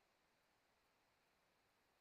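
Near silence: a pause between sentences with only faint background hiss.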